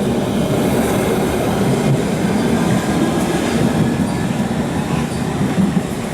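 Train moving along the track at a station, a steady rumble of wheels and running gear.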